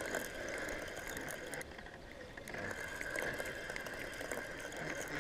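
Spinning reel being cranked steadily while reeling in a hooked channel catfish: a light whir of the reel's gears with faint ticking. It stops briefly a little under two seconds in, then starts again.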